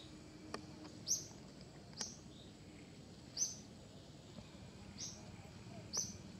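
A small bird calling with short, high, falling chirps, five of them about one to one and a half seconds apart, over a steady low outdoor background.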